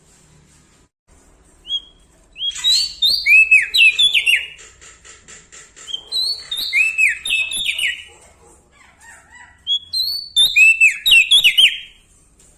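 Prenjak daun singing: three loud, quick phrases of sharp down-slurred whistled notes, with a fast trill between the first two.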